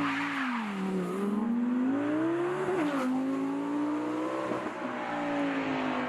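Sports car engine revving: the pitch rises and falls twice in the first three seconds, then holds steady at fairly high revs.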